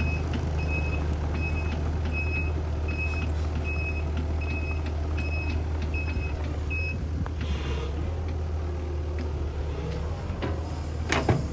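Sumitomo SH120 A3 hydraulic excavator's diesel engine running steadily while its travel alarm beeps about twice a second as the machine tracks along; the beeping stops about seven seconds in. A brief sharp sound comes near the end.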